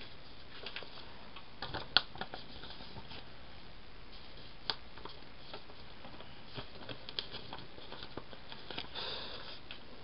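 Paper planner pages and sticker sheets being handled: light paper rustles and small taps, with a sharp click about two seconds in and another just before five seconds.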